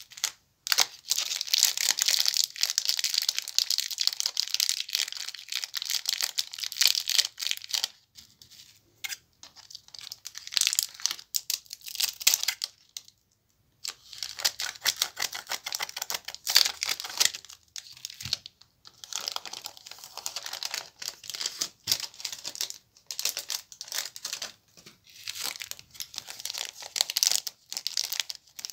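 Plastic candy wrappers crinkling as hands handle and open them, coming in bursts of dense crackle with a brief pause about halfway through.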